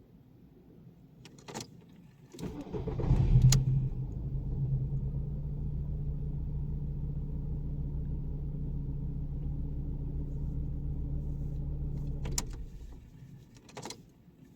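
VW Bora 1.6 AKL four-cylinder petrol engine cranked and catching about two seconds in, with a strange extra noise during the start that the owner cannot place. It then idles steadily and is switched off near the end, with a couple of ignition-key clicks before and after.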